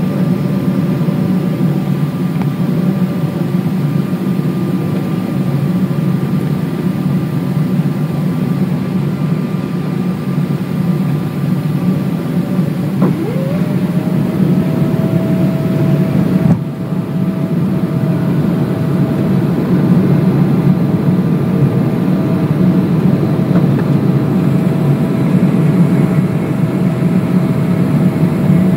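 Cabin noise inside a Boeing 777-200 airliner on final approach with flaps extended: a steady rush of airflow and engine noise. About halfway through a whine rises in pitch and then holds steady, and the noise grows a little louder after that.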